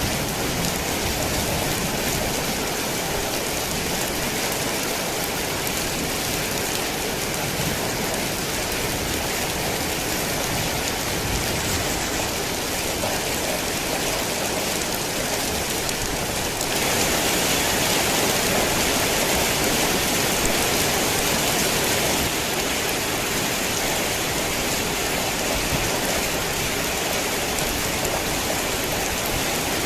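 Heavy rain falling steadily, a dense even hiss. It grows louder and brighter for about five seconds past the middle, then settles back.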